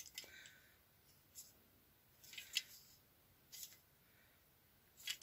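Faint, scattered clicks and light taps of the Singer 360 knit contour's plastic-and-metal module being handled and turned in the hands, with a few small ticks spread over several seconds, the loudest about two and a half seconds in.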